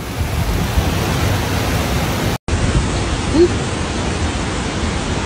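Storm noise of hurricane wind and rain: a steady rushing roar, heavy in the low end where wind buffets the microphone. It breaks off abruptly a little over two seconds in, then resumes in much the same way. A short rising squeak comes about three and a half seconds in.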